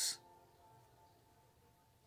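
The end of a spoken word's hissing 's' right at the start, then near silence: room tone with a faint steady hum.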